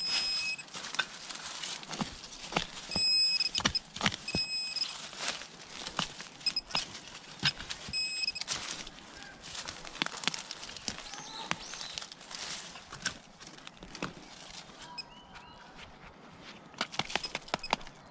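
Hand digging with a serrated digging knife: it scrapes and crunches through dry leaf litter and soil in quick irregular strokes. A metal detector's high beeping tone sounds steadily at first, then in short broken beeps through the first half as it is passed over the hole.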